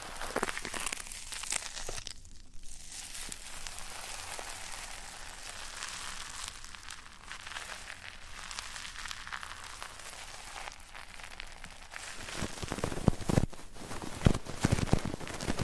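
Close-miked ASMR ear-rubbing and ear-cleaning sounds on a microphone: dense crackly rustling and scratching, with a brief lull about two seconds in. Louder bumps and knocks with a deep thud come in over the last few seconds.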